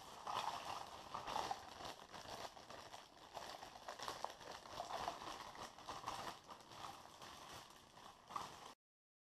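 Clear plastic bag crinkling as it is handled, with the white plastic drain-pipe pieces inside clicking and knocking against one another. It stops abruptly near the end.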